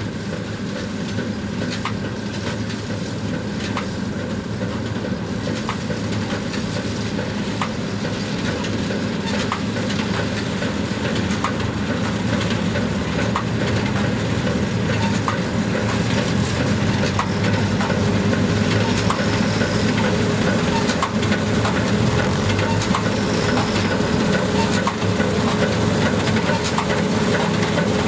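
John Deere 1052 combine harvester running and threshing while it cuts standing wheat: a steady, dense machine sound that grows louder as it approaches. It carries a sharp tick about once a second, and a thin steady whine comes in about two-thirds of the way through.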